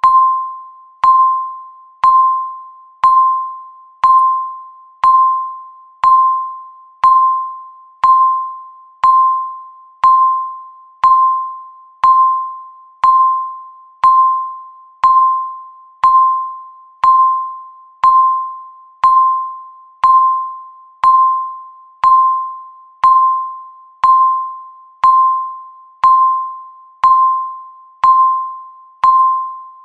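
Countdown timer's ticking sound: a single ringing, bell-like tone struck once a second, each stroke fading away before the next.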